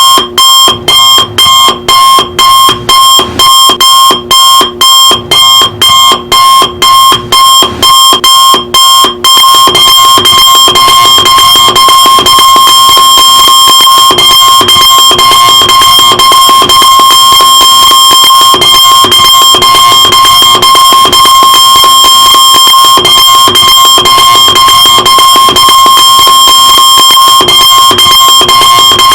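Electronic alarm clock beeping loudly, about two beeps a second; about nine seconds in, the beeps run together into one almost unbroken high-pitched tone.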